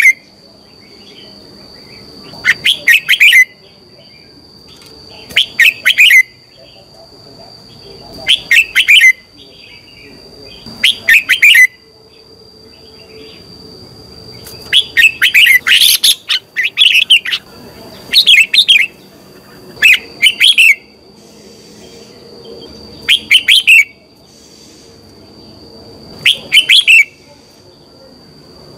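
Red-whiskered bulbul singing: loud short phrases of a few quick, clear notes, repeated about every two to three seconds, with a longer run of phrases about halfway through. A faint steady high tone runs underneath.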